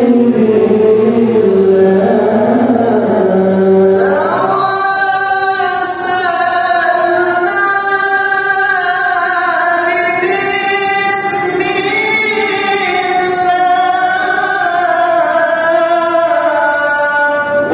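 A man's voice reciting the Qur'an in melodic tilawah style into a hand microphone, in long, ornamented, wavering phrases. About four seconds in it slides up from a lower register to a high, piercing pitch that it holds for the rest of the phrase.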